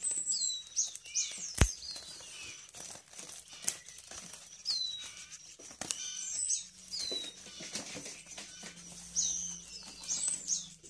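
Young songbirds chirping, many short high rising-and-falling calls through the whole stretch, over the rustle and crinkle of woven bamboo baskets and plastic strapping being handled and cut with scissors. One sharp loud click comes about a second and a half in.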